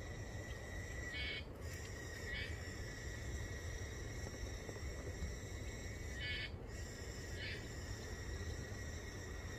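Ōshima cicada (Meimuna oshimensis), a relative of the tsukutsukubōshi, calling from the bushes. There is a steady high whine, and pairs of short harsh bursts come about a second apart, twice, about five seconds between the pairs.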